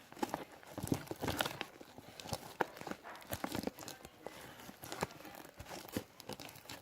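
Homemade glue-and-detergent slime being kneaded and stretched by hand, giving many irregular sticky clicks and crackles.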